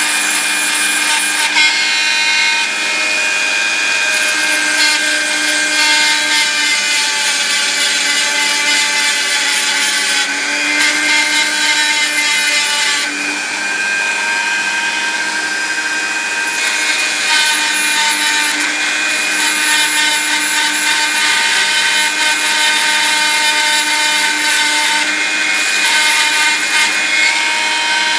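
Dremel rotary tool running steadily while grinding down a soldered tin tail wing on a die-cast toy. Its whine shifts slightly in pitch, and the grinding hiss comes and goes as the bit is pressed on and lifted off.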